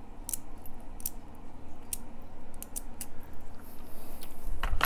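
Light metallic clicks and clinks as the Ingersoll CS lever lock's partly gutted lever pack is turned and handled with its key inserted. A louder knock comes near the end.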